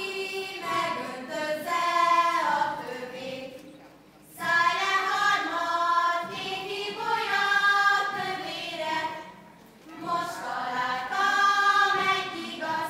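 A group of girls' voices singing a Hungarian folk song together in unison, with no instruments heard, the singing of a karikázó circle dance. It goes in three sung phrases with short pauses between them, about four seconds and ten seconds in.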